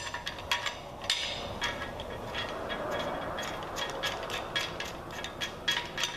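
Steel cam bearing installer tool being slid through the cam bores of a big-block Chevy 396 block: a run of sharp metallic clinks that ring briefly, with a scraping rasp in the middle as metal rubs on metal.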